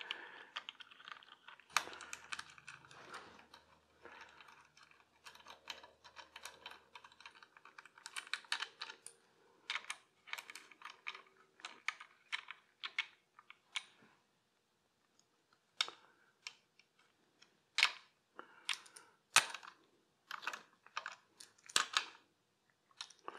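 Light, irregular metal clicks and taps from a socket wrench on a long extension snugging the oil pump's mounting bolts. The clicks come in short clusters, with a pause about two-thirds of the way through and a few sharper clicks after it.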